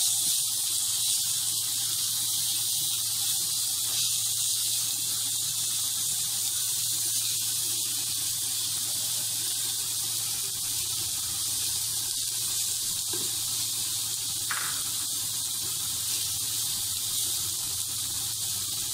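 Sliced onions, garlic and dried chilli sizzling steadily in hot oil in a nonstick frying pan, with a steady low hum underneath. A few faint scrapes come from a wooden spatula stirring the pan.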